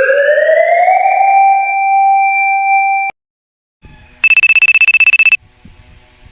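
A rising electronic tone that levels off and cuts out about three seconds in, then a telephone ringing with one loud, rapid trilling ring about a second long, the sound of a call going through.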